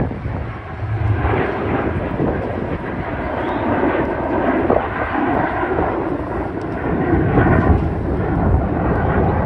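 Loud, continuous jet aircraft engine noise from a military jet flying by.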